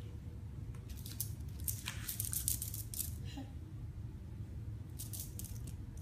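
Scattered short rustles and rattles of a small hand-held toy being waved and handled, over a steady low hum.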